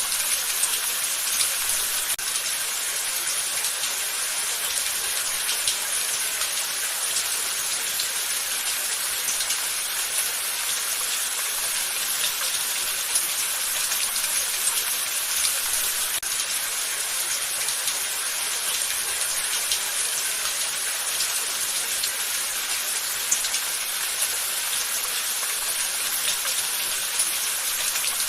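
Steady rain falling, a continuous high hiss with many fine patters of drops.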